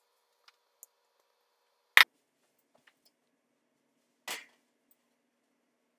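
A few sparse sharp clicks and knocks, with one loud single clack about two seconds in and a short, noisier clatter a little after four seconds.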